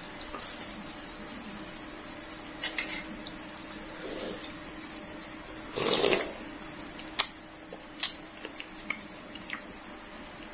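Crickets chirping steadily in a continuous high trill. About six seconds in comes a short slurp as dressing is sipped from a spoon, followed by two sharp clicks.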